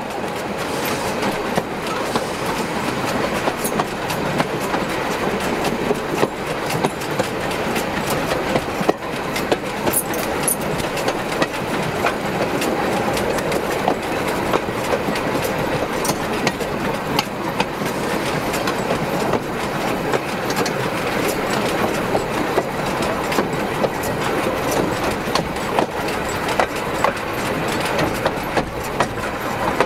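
Steel wheels of a narrow-gauge railway wagon rolling along the rails: a steady rolling rumble with frequent sharp clicks and knocks, the clickety-clack of the wheels over the track.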